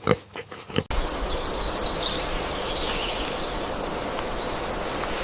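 A pig grunting in short, repeated bursts, cut off suddenly about a second in. Steady outdoor background hiss follows, with a few high bird chirps sliding downward.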